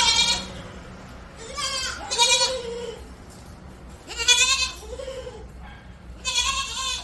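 Goats bleating: a run of loud, wavering bleats, each about a second long, coming roughly every two seconds.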